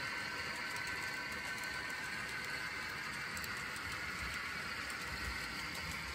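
Model double-stack container train's well cars rolling past on the track: a steady, fairly high rolling hiss of wheels on rail.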